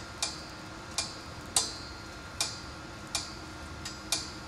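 Delonghi MultiFry air fryer, preheated and running, ticking with sharp metallic clicks about once every three-quarters of a second over a low steady hum.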